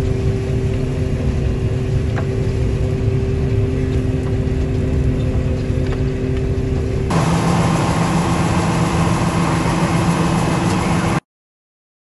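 John Deere 9500 combine harvester running while it picks up swathed canola: a steady mechanical hum with a few steady tones. About seven seconds in it changes abruptly to a louder machine noise, which cuts off suddenly near the end.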